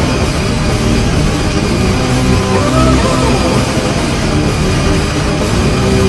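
Ottawa Senators NHL goal horn and heavy rock goal song put through a 'G major' edit, with pitch-shifted copies layered into one loud, distorted, clashing wall of sound.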